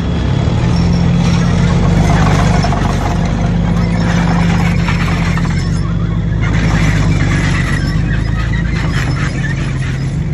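Main battle tank's diesel engine running with a deep, steady drone as the tank drives past on its tracks, with a harsh noisy clatter layered over it.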